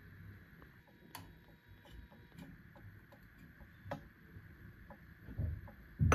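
Light, irregular ticking and tapping, with a few sharper clicks: one about a second in, one near four seconds and a louder one at the end.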